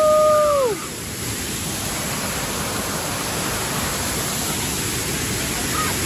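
Waterfall cascading over a rock face: a steady, even rush of falling water. Within the first second a long held high-pitched shout ends, dropping in pitch as it cuts off.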